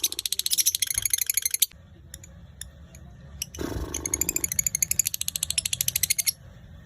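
Lovebird giving its rapid, high-pitched chattering trill (the 'ngekek' prized in konslet lovebirds), in two long bouts: the first stops about a second and a half in, the second starts about three and a half seconds in and runs for nearly three seconds.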